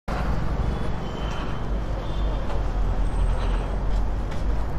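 Steady low rumble of vehicle engines and street traffic.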